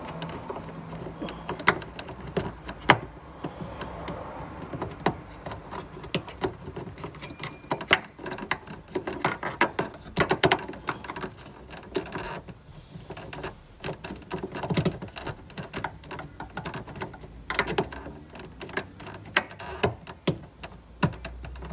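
Irregular plastic clicks, knocks and rustling from a hand fitting a tail-light bulb holder back into its housing behind the car's rear trim.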